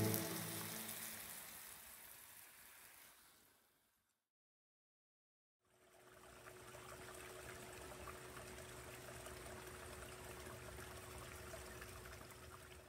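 The last notes of music die away over the first few seconds, then a short gap of silence. After that comes a faint, steady rush of running water from a garden stream or pond, with a thin steady hum under it.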